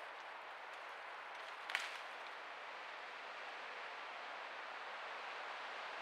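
Steady, even hiss of background noise with one short, sharp click a little under two seconds in.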